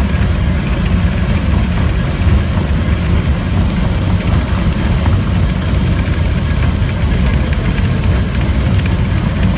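Mount Washington Cog Railway locomotive running steadily, a continuous low rumble without breaks.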